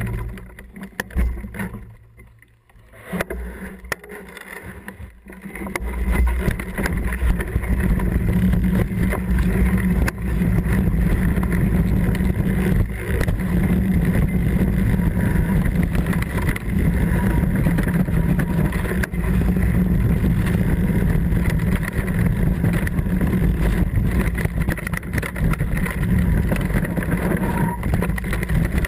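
Mountain bike riding down a rough dirt and rock trail: a steady rumble and rattle of tyres and frame, with wind buffeting the bike-mounted camera's microphone. It starts quieter and uneven, and grows loud and steady about six seconds in.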